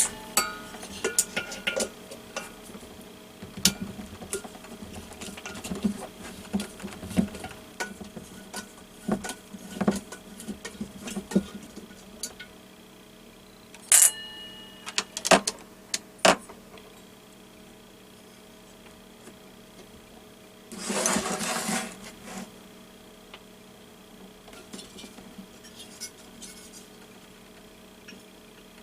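Small metallic clicks and taps of an Allen key working screws out of a diesel heater's metal combustion assembly, with one sharper ringing clink in the middle and a scraping rustle about a second long later on, over a faint steady hum.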